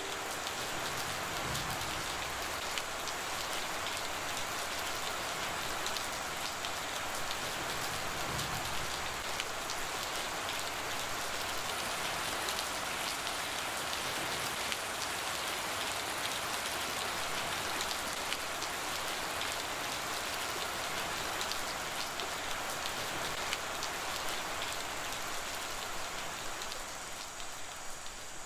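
Steady rain falling: a dense, even hiss of drops pattering on hard surfaces, easing slightly near the end.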